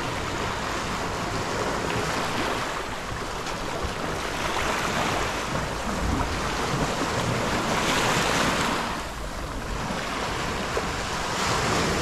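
Small Black Sea waves breaking and washing up over sand and pebbles at the water's edge, each wash swelling and fading every few seconds. Wind rumbles on the microphone.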